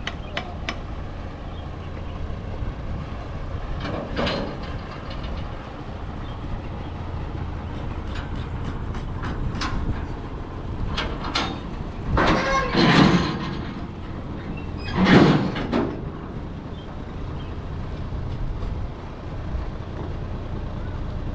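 Outdoor ambience: a steady low rumble with scattered clicks and knocks, and two louder rushing noises about twelve and fifteen seconds in.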